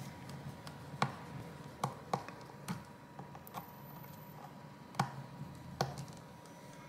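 Handling clicks and taps on a rugged phone's plastic and rubber case as fingers work at its back cover: about six sharp, irregular clicks, the loudest about a second in and about five seconds in.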